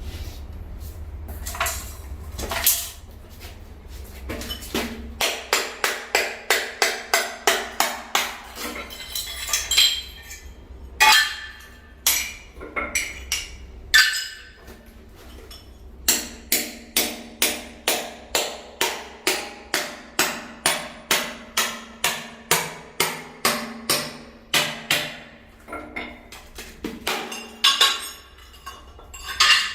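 Hammer tapping on tile in quick runs of about two to three strikes a second, with pauses and a few single knocks between the runs.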